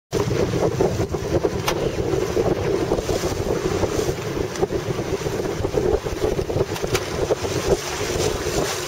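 Wind buffeting the microphone in uneven gusts, over the rush and lapping of choppy river water.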